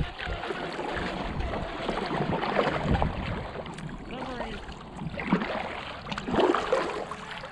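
Kayak paddle strokes: the blades dipping and pulling through lake water, with splashing, drips and water lapping against the hull.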